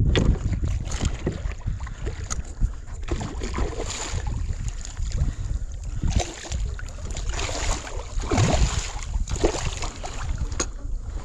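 Wind buffeting the microphone over water sloshing and splashing around a kayak hull, coming in uneven gusts and surges.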